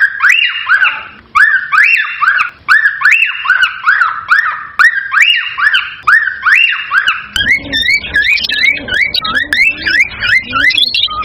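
Cockatiel calls: a fast, evenly repeated series of loud rising-and-falling whistles. About seven seconds in they change to quicker, smaller wavering notes, with lower notes beneath that sound like guitar music.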